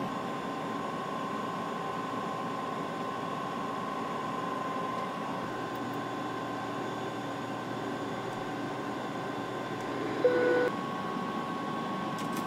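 Steady cockpit noise of an aircraft in flight: an even rushing hum with a constant mid-pitched tone running through it. About ten seconds in, a short, louder steady tone sounds for about half a second.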